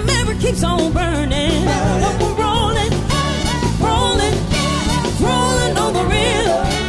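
Soul band playing a Motown-style cover, with singing over the band.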